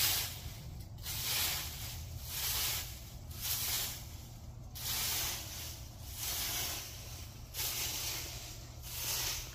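A rake scraping and swishing through dry fallen leaves in repeated strokes, about one a second.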